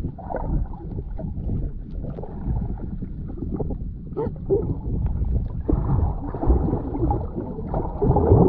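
Water sloshing and bubbling heard through an underwater camera housing as swimmers stroke and kick close by: a dense low rumble with scattered clicks and crackles. It grows louder, with a muffled wavering tone, near the end.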